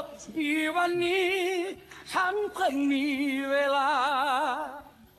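A voice singing long held notes with a wide, even vibrato, in two phrases with a short break about two seconds in.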